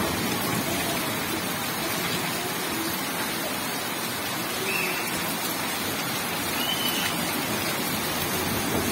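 Heavy rain pouring steadily onto a wet road, an even unbroken hiss.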